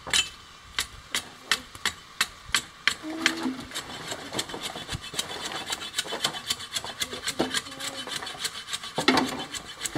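Hand-held blade scraping bark off a long wooden board in short regular strokes, about three a second at first and quicker from about four seconds in.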